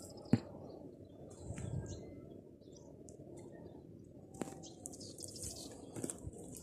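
Birds chirping sparsely over a low, steady outdoor rumble, with one sharp click about a third of a second in.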